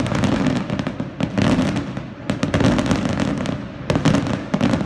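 Fireworks display: rapid, dense crackling and bangs of bursting shells, with a cluster of louder reports near the end.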